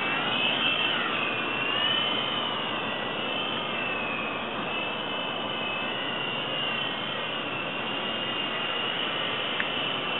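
Syma Alloy Shark 3-channel RC helicopter's electric motors whining and twin rotors whirring as it takes off and flies. The pitch wavers with the throttle over the first couple of seconds, then holds steadier, with a brief click near the end.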